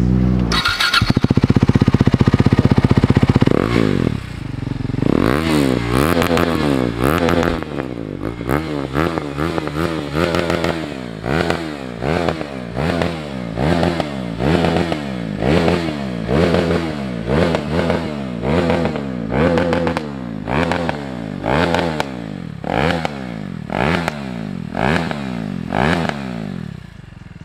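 KTM RC 390's single-cylinder engine starting and running loud for a few seconds. It is then revved in a long series of quick throttle blips, about one a second, each rising and falling in pitch. The engine is shut off near the end.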